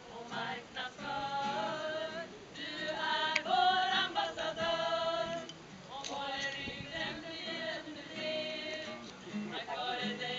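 A small group of men and women singing a song together, accompanied by an acoustic guitar.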